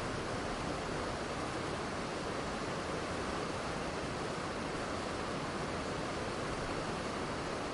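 Waterfall pouring steadily: a continuous, even rush of falling water that does not change.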